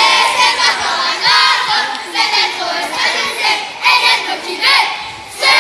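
Crowd of children shouting and cheering in high voices, in repeated bursts about a second apart.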